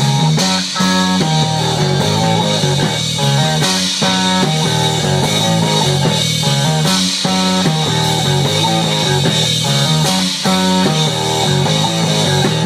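Live rock band playing loud: amplified guitars over a drum kit, through PA speakers.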